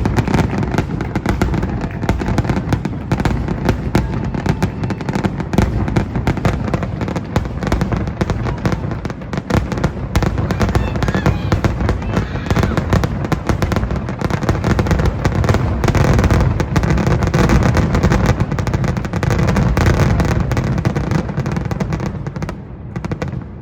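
Fireworks finale: a dense, continuous barrage of aerial shell bursts with no gaps between them, easing off about a second before the end.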